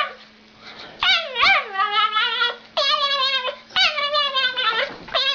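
A dog giving three long, wavering whining howls, each starting high, dropping, then held at a quavering pitch.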